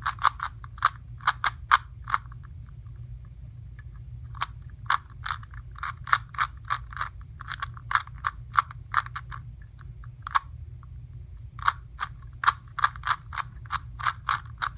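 Plastic Rubik's cube being turned quickly in a speed-solve: runs of sharp clicks, several a second, with short pauses between runs. The solver thinks part of the cube's inner mechanism is broken and loose.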